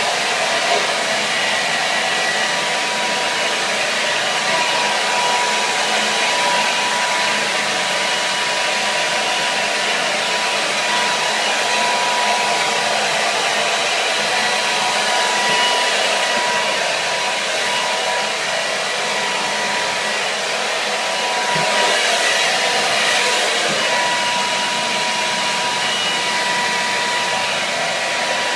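Hair dryer running steadily: an even rush of blown air with a thin, steady motor whine on top. It swells slightly for a moment a little past two-thirds of the way through.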